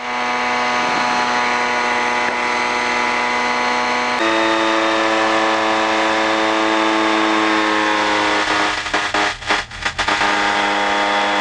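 Titan Tornado II ultralight's engine and propeller running steadily in flight on the downwind leg. The engine note changes abruptly about four seconds in. The sound briefly breaks up several times near the end.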